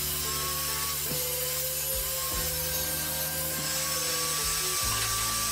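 Jobsite table saw running as a plywood sheet is fed through the blade, under background music.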